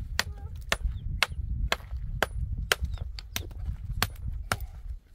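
A hammer striking rock with sharp, evenly paced blows, about two a second, over a steady low rumble.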